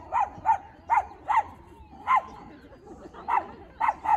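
A small dog barking in short, sharp yaps, about nine of them, coming singly or in quick pairs with brief gaps between.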